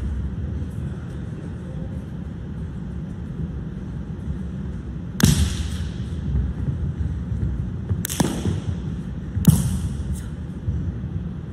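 Three sharp smacks from a changquan performer's strikes and footwork on the competition mat: one about five seconds in and two close together near the end, each echoing in the hall, over a steady low rumble.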